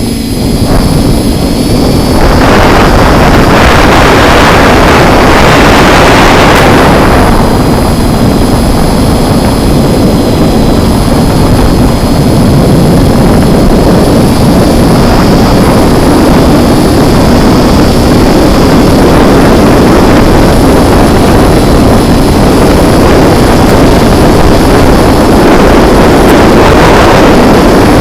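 Strong wind roaring and buffeting across the microphone of a TBS Disco Lite drone in flight, rising to full loudness about a second in. A thin, steady high whine from its electric motor runs underneath.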